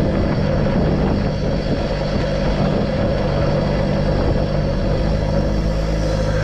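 Pickup truck engine running steadily under load while climbing a mountain dirt track.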